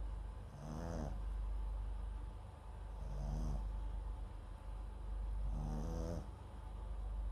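Small Papillon–Japanese Chin mix dog snoring in its sleep, close to the microphone: three short pitched snores about two and a half seconds apart.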